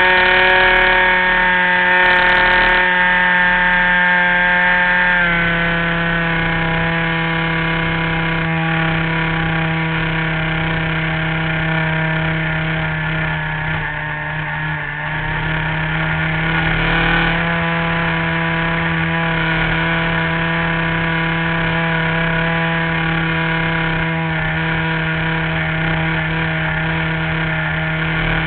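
An RC model airplane's engine and propeller running in flight, heard from on board the plane. The pitch steps down about five seconds in as the throttle comes back, then holds steady apart from a short dip and rise midway.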